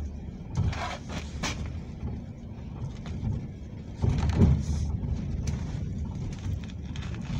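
Low, steady vehicle rumble, getting louder about four seconds in, with a few short noisy swishes near the start.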